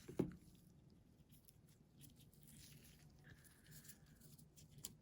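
Near silence with one sharp click shortly after the start and a few faint ticks and rustles: small phone parts being handled during an iPhone repair.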